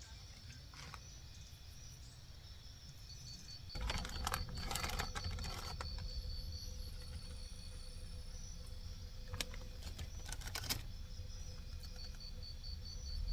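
An insect, like a cricket, chirping in a steady high pulsing trill that drops out in the middle, with a few bursts of clattering and rattling as hard objects are handled about four seconds in and again near ten seconds.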